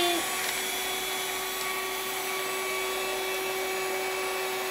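Small rechargeable handheld vacuum cleaner running steadily: a constant motor whine over the rush of air.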